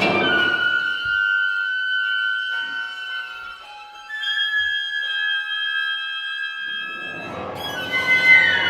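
A contemporary chamber quintet of flute, clarinet, piano, violin and cello playing live. A dense passage thins about a second in to a few high sustained tones held for several seconds. Near the end the fuller ensemble texture returns with falling lines.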